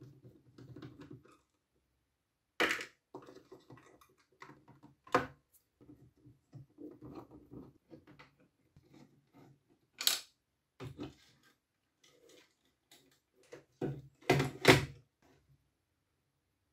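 Irregular clicks, taps and knocks of hands handling a plastic toy sewing machine's casing and small parts, with a few sharper clicks and the loudest pair near the end.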